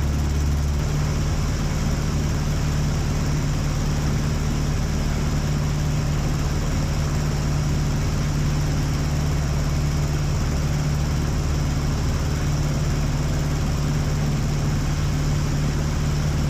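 Aeronca Chief's engine and propeller droning steadily at a constant cruise setting in flight.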